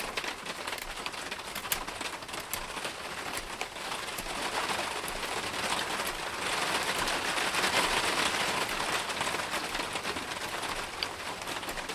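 Schrade SCHF 42D knife shaving a piece of dry softwood by hand in short, clicking scrapes, over a rushing wind-and-rain noise that swells in the middle and then eases.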